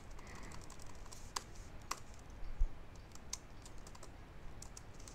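Computer keyboard being typed on: a few separate, faint keystrokes spaced irregularly, as text is deleted and edited.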